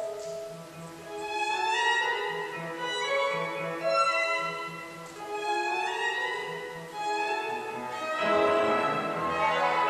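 A violin and a grand piano playing classical music together: the violin's bowed melody in rising and falling phrases over piano accompaniment, growing louder and fuller about eight seconds in.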